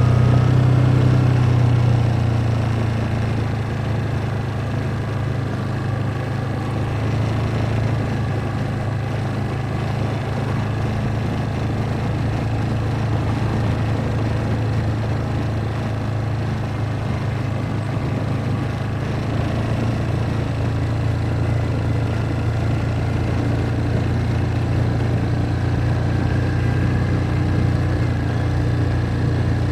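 ATV engine running steadily while riding, a little louder for the first couple of seconds.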